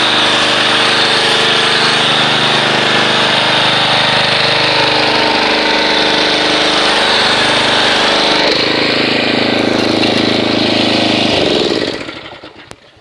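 Pressure washer running as it sprays detergent foam through a foam cannon, a steady machine sound with the hiss of the spray over it. The sound changes about eight and a half seconds in and dies away shortly before the end as the spraying stops.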